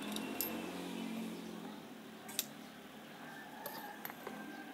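Handling sounds from a Fugu Eiji spinning reel as it is taken apart. There is one sharp click about two and a half seconds in and a few lighter ticks near the end.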